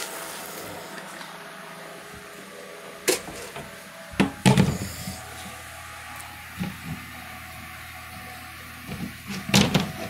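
A handful of knocks and bangs from a wooden pen gate and boards, loudest about four seconds in and again near the end, over a faint steady hum.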